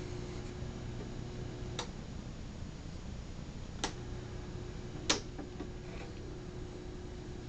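Low steady hum of a small sharpening machine's motor turning a leather strop wheel, with three sharp clicks about 2, 4 and 5 seconds in, the last the loudest. The hum drops partly away at the first click and comes back at the second.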